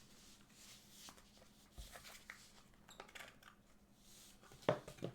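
Faint rustling and light clicks of trading cards and their packaging being handled, with a sharper tap near the end, over a faint steady hum.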